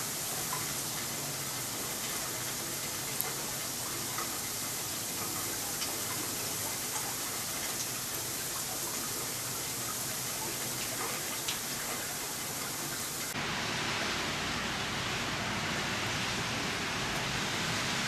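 Steady hiss of falling rain and wet snow, with faint scattered ticks. About 13 seconds in it cuts to a fuller, steady hiss with more low rumble.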